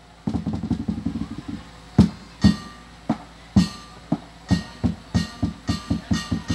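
Percussion from a Lakhon Bassac theatre ensemble: a quick roll of strikes, then separate sharp strikes at uneven spacing, some leaving a ringing tone.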